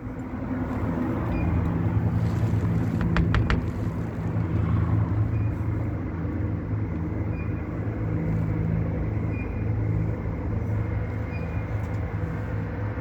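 A car engine idling with a steady low hum, with a few sharp clicks about three seconds in.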